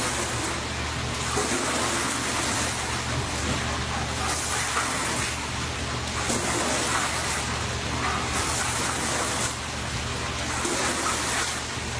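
Car wash water spray hissing steadily against the side of a car, swelling about once a second, with a steady low hum underneath.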